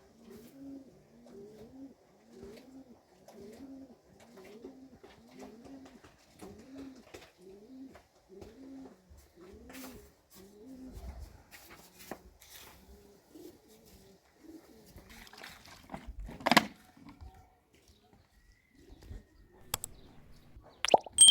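A dove cooing over and over, a little more than one low coo a second, until it stops about two-thirds of the way through. Later comes a single sharp knock, the loudest sound, followed near the end by a few clicks.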